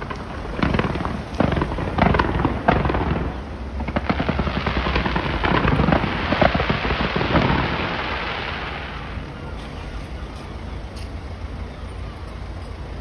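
Aerial fireworks going off: a rapid string of sharp bangs, then a dense crackling that dies down over the last few seconds.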